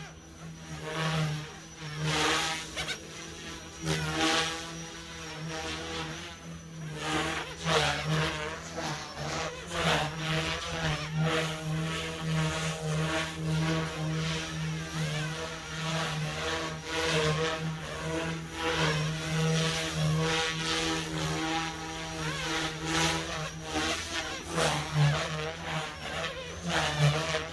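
Goosky S2 micro RC helicopter flying, its electric motor and rotor blades giving a steady buzz with a whine that rises and falls again and again as the throttle and blade pitch change through manoeuvres.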